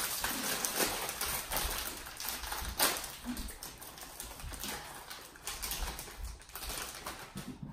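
Crinkly snack-chip bags rustling and crackling as they are handled and tipped, a dense run of small crackles with one sharper crackle about three seconds in, fading toward the end.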